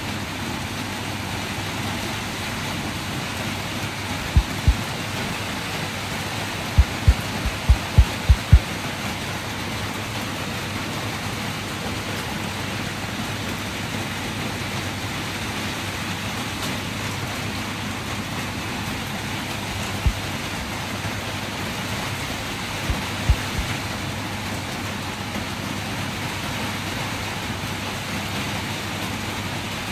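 Steady hiss of rain. A few short low thumps sound over it: two about four seconds in, a quick run around seven to nine seconds, and a few more later.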